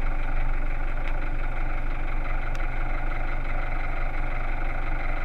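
Toyota Land Cruiser KDJ125's 3.0-litre four-cylinder turbodiesel idling steadily with the vehicle standing still.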